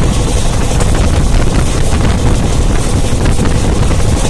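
Wind buffeting the phone's microphone at the window of a train at full speed, a steady loud rush over the train's running noise.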